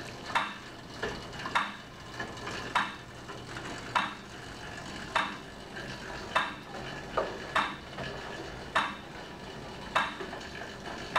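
Steady clicking, one sharp click about every 1.2 seconds, in time with pedalling at 50 revolutions per minute on a Monark cycle ergometer.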